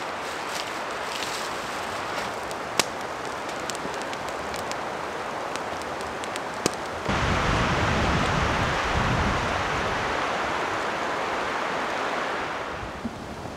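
Campfire crackling, with a few sharp pops over a steady hiss. About seven seconds in, a louder steady rushing noise with a low rumble suddenly takes over, then eases off near the end.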